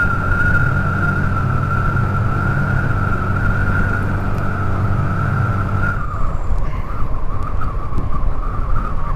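Motorcycle engine running at a steady cruising speed with a steady high whine and road and wind rush. About six seconds in, the engine note drops and turns uneven.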